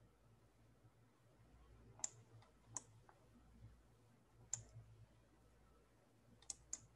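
A handful of faint, sharp computer mouse clicks, spaced irregularly, two of them close together near the end, against near silence.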